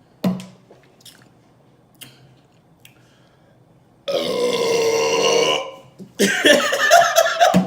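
A woman's long, loud burps brought up by Coca-Cola just gulped down: one about four seconds in lasting about a second and a half, and a second starting about six seconds in. A short thump comes near the start.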